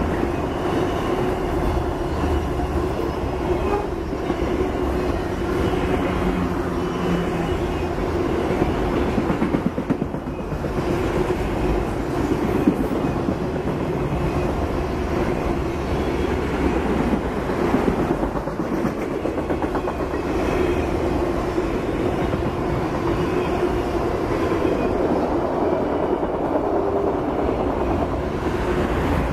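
Freight train of enclosed autorack cars rolling steadily past close by: a continuous rumble and clatter of steel wheels on the rails.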